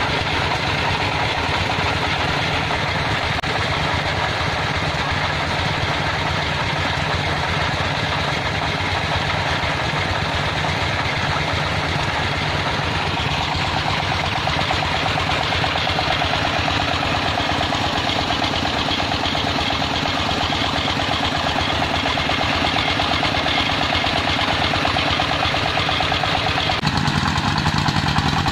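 Công nông farm truck's single-cylinder diesel engine chugging steadily with a fast, even beat; its note shifts near the end.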